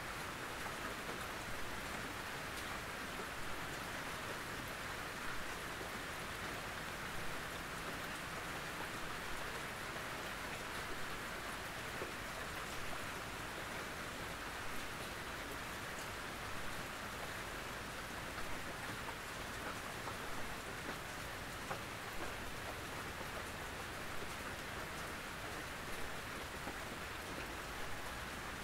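Steady rain on a tin roof: a constant patter with scattered louder drops ticking on the metal.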